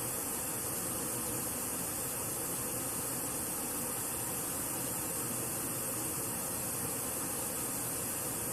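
Pink noise played through a Sony SRS-HG10 Bluetooth speaker with Extra Bass mode on: a steady, even hiss.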